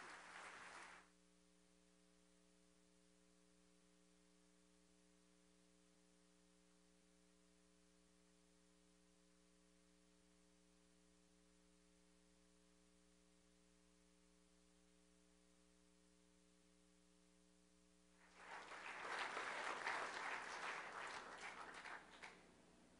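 Audience applause cuts off about a second in, leaving near silence with a steady electrical hum; a short round of applause rises again near the end.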